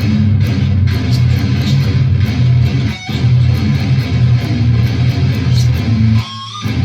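Electric guitar tuned down to drop A playing a low breakdown riff, with a brief gap about three seconds in, cutting off just after six seconds.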